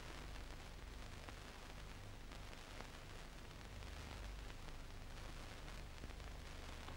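Faint steady hiss and low hum of an old film soundtrack, with a few soft clicks.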